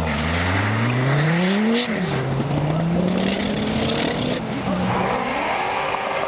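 Two high-performance cars, a Dodge Viper and a Cadillac CTS-V, launching hard from a standing start and accelerating away. The engine note climbs steeply, drops at a gear change about two seconds in, then climbs again more slowly as the cars pull away.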